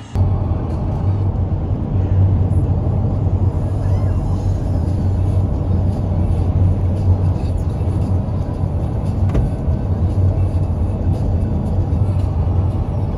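Steady low rumble of a motor vehicle on the road, heard from inside.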